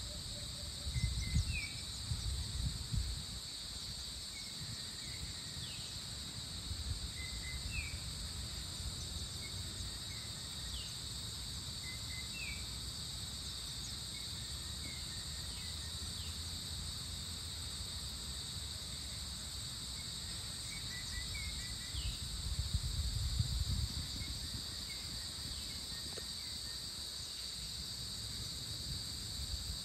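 Steady, high-pitched drone of an insect chorus at dawn, with scattered short rising bird chirps over it. Low rumbles come in twice, about a second in and again a little past two-thirds of the way through.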